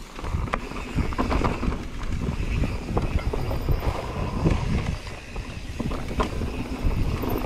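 Mountain bike rolling fast down a dirt forest trail: wind buffeting the microphone and tyres rumbling over the ground, with scattered knocks and rattles from the bike over bumps.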